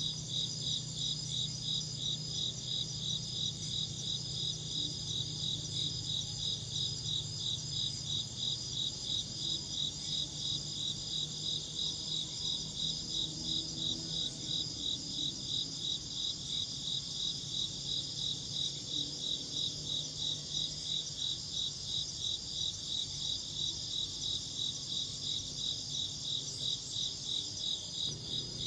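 Crickets chirping in a steady, even rhythm of high-pitched pulses, a few per second, unchanging throughout.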